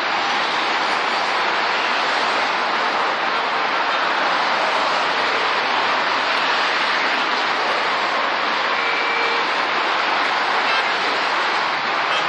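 Steady rush of many cars and trucks on a multi-lane freeway passing below, blending into one continuous noise.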